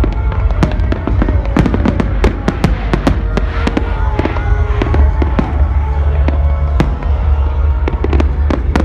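Fireworks going off in a rapid barrage of bangs and crackles, several a second, over loud music with a heavy, steady bass.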